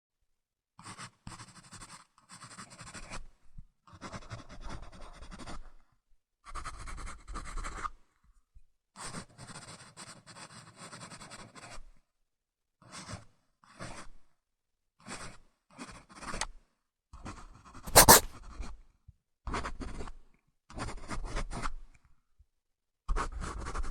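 Pencil scratching across a surface in a series of short strokes, separated by brief silences, with one sharp tap about eighteen seconds in.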